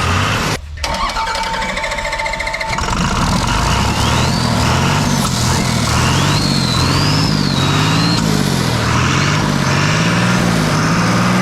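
Diesel engine on its final test run after an overhaul, running with its speed rising and falling in a slow, wavering cycle. A steady high-pitched tone sounds for about two seconds near the start.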